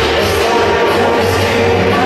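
Loud music playing steadily, rock-like.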